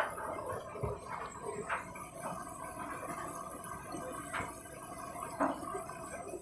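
Candy Grand'O Vita washing machine filling its empty drum with water during a rinse cycle: a steady trickling hiss with occasional splashes and drips.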